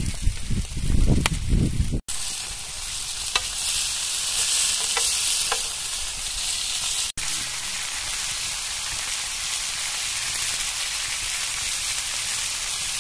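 Fish frying on a tawa over a wood fire: a steady, hissing sizzle of oil with a few faint pops. A low rumble covers the first two seconds, and the sound drops out briefly twice.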